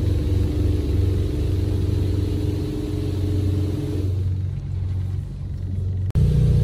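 Steady low rumble of a car wash's machinery heard from inside the car while water runs over the windshield. About six seconds in it cuts to a louder, deeper rumble.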